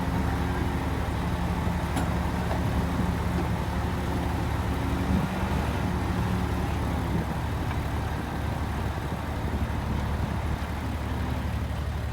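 Heavy diesel engine of earthmoving machinery running steadily under load, with a low hum that weakens a little past the middle.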